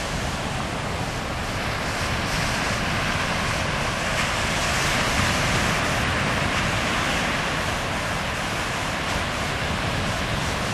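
Small ocean waves breaking and washing up a sandy beach in a steady rush of surf, swelling a little around the middle.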